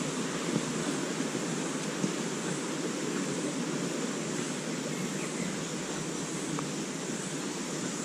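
A steady rushing noise that stays even throughout, with no distinct knocks or steps standing out.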